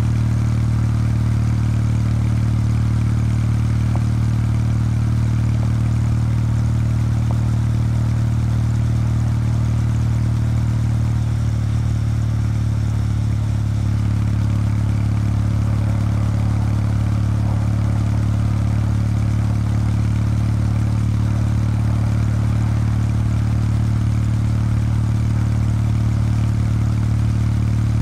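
Exhaust note of a Kawasaki W800 Street's air-cooled parallel-twin engine on its stock exhaust, running steadily while under way. The pitch shifts slightly about twelve seconds in, then holds steady again.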